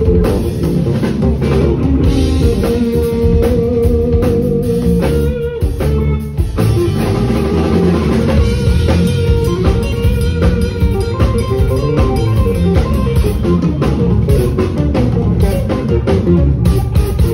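Live instrumental jazz-funk band: an electric guitar plays a melodic line over bass guitar and drum kit, with one note held for a few seconds early on.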